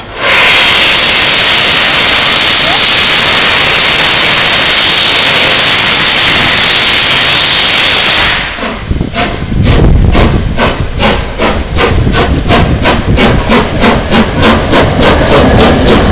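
Three-cylinder steam locomotive, LNER Peppercorn A1 60163 Tornado, blowing steam from its open cylinder drain cocks in a loud steady hiss. After about eight and a half seconds the hiss drops away into the engine's rapid, regular exhaust beats, about three a second, with a low rumble as the locomotive runs past close by.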